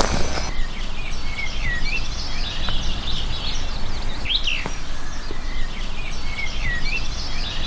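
Several songbirds singing short chirping phrases over and over, with one louder sweeping call about four seconds in, over a steady low background noise.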